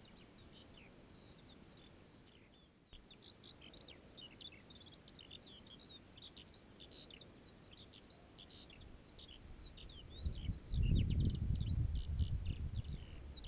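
Eurasian skylarks singing: a long, unbroken stream of rapid high chirps and trills. A low rumbling noise comes in near the end and is the loudest part.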